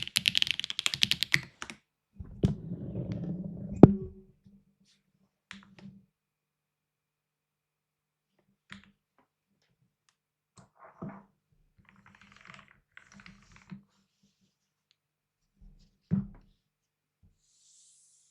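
Neson 700e mechanical keyboard with HMX Cheese switches and GMK keycaps being typed on: a quick run of keystrokes at the start, then only scattered single key presses and a few thuds.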